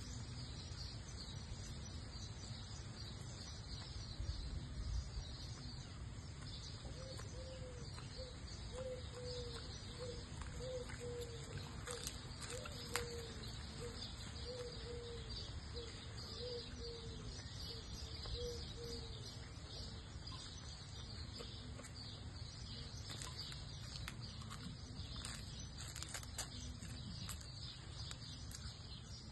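Outdoor ambience of birds calling: a steady high chirping throughout, and a run of short low calls repeated about twice a second through the middle stretch.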